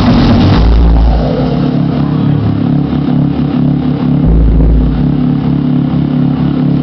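Electronic band playing live: a sustained synthesizer drone and bass chords with no drum beat, with two long deep bass swells.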